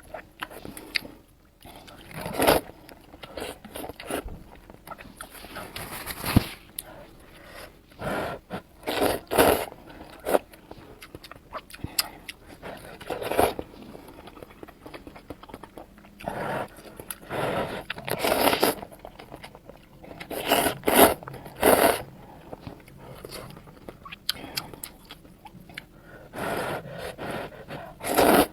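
Close-up eating of spicy glass noodles: irregular bursts of chewing and biting, some sharp, with short pauses between mouthfuls.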